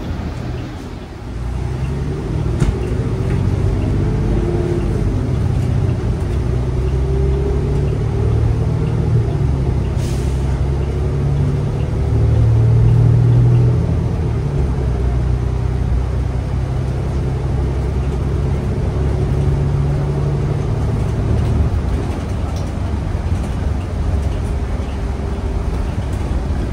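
Cabin sound of a 2020 New Flyer XN35 natural-gas transit bus under way: its Cummins Westport L9N engine and Allison automatic transmission drone as the bus accelerates, the engine note climbing and dropping with the gear changes and loudest around the middle before easing near the end. A brief hiss sounds about ten seconds in.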